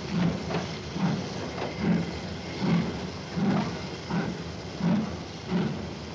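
Railway carriage running along the track: a steady rumble with a rhythmic clatter of wheels over the rail joints, about one beat every three-quarters of a second.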